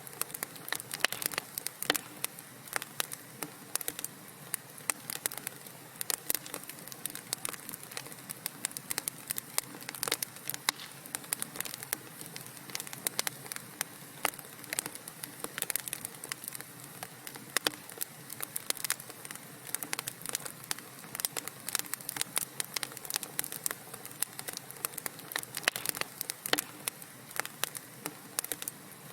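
Wood fire burning in a fireplace: a steady soft hiss with irregular sharp crackles and pops, several a second.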